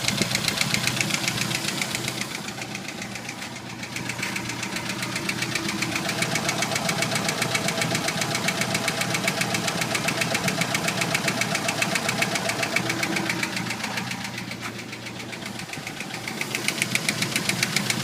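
Jeep YJ's 2.5L four-cylinder engine idling cold with a fast, steady ticking knock, which the owner calls more of a pinging, a ticking. The sound fades twice and comes back.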